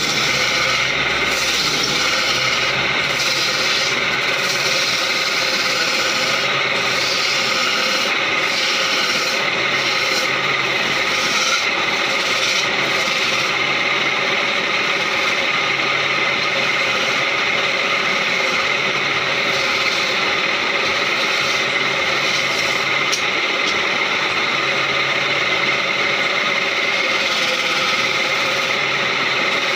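Wood lathe running while a hand-held chisel cuts a spinning wooden leg: a steady scraping of wood over the even hum of the lathe.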